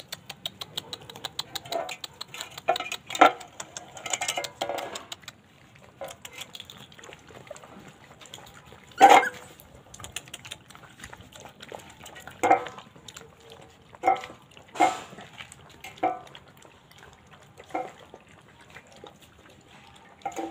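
Weaning puppies eating from an enamel metal plate on concrete, with the plate clinking under them. Rapid small clicks fill the first few seconds, then come short, loud, sharp sounds every second or two.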